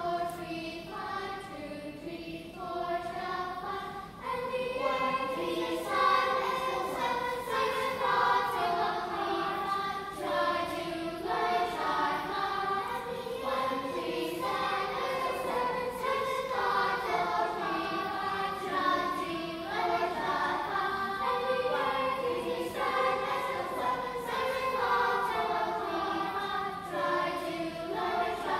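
Children's choir singing, many voices holding and moving between sustained notes together.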